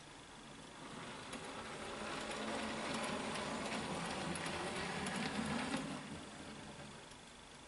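Bachmann OO scale BR Standard 4MT tank locomotive running along the track: a small electric motor and gears whirring, with the wheels rolling on the rails. The sound grows louder from about a second in and falls away at about six seconds.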